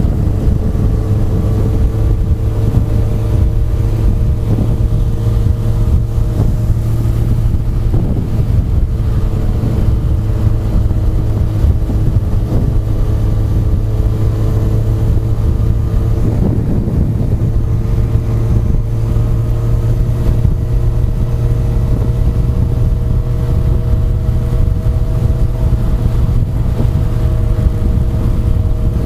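Honda CBR1100XX Super Blackbird's inline-four engine running steadily on the move, its note drifting slowly and rising gently in the second half.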